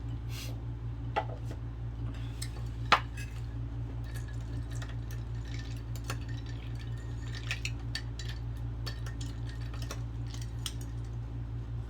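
Scattered light clinks and taps of dishes, glass and utensils during a meal, the sharpest about three seconds in, over a steady low hum.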